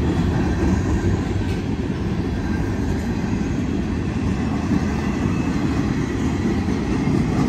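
Manifest freight train's gondolas and flatcars rolling past: a steady low rumble of steel wheels on the rails.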